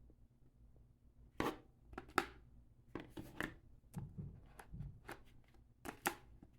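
Hands handling the cardboard box and packaging of a phone: a string of sharp clicks and taps, loudest about one and a half and two seconds in and again near the end, with a few duller knocks in between.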